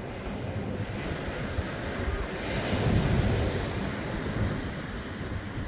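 Ocean surf breaking and washing up the beach, swelling to its loudest about halfway through, with wind rumbling on the microphone.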